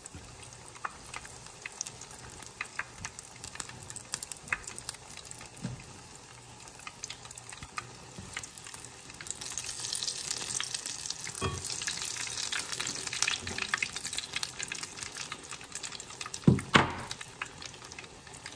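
Apple fritters deep-frying in a pan of hot oil: a steady crackling sizzle with scattered pops. The sizzle grows louder about halfway through, and there is one loud knock near the end.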